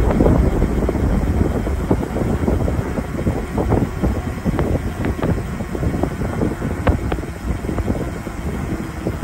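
Wind rushing over the microphone and road rumble while riding a bicycle downhill, with scattered sharp clicks and knocks throughout.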